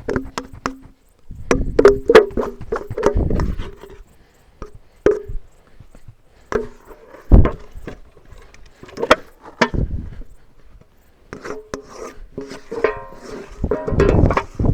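Spatula scraping sticky brioche dough out of a mixing bowl onto a work table, with irregular knocks and clicks of the bowl and utensil on the table and one heavy thump about halfway through.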